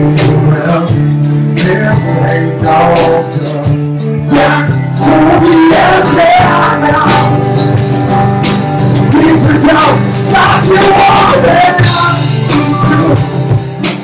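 A live rock band playing: a man singing over strummed guitars with a steady beat on a drum kit and cymbals.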